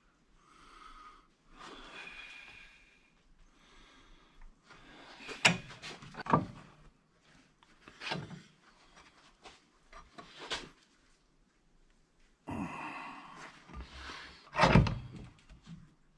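Quarter-inch steel rod clanking and knocking against a cast-iron bench vise as it is bent by hand, with about five sharp knocks, the loudest near the end. Softer scraping and rustling of the rod and heavy gloves comes in between.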